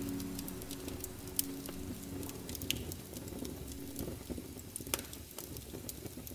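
Wood fire crackling in a fireplace, with scattered sharp pops over a soft steady hiss.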